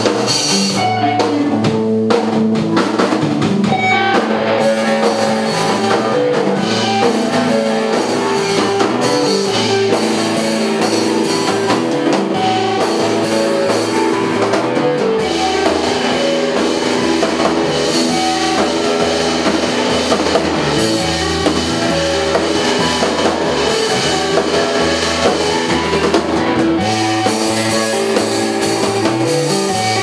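Rock music played on drum kit and electric guitar, with a deep bass part that comes in about halfway through and drops out near the end.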